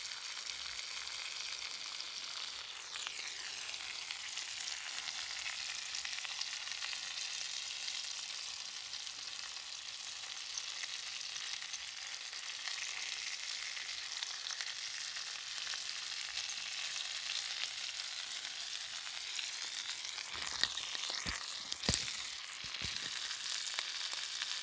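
Steaks, bacon and vegetables sizzling steadily in seasoned iron pans and on a flat griddle plate over wood coals. A few sharp knocks come near the end, one of them much louder than the rest.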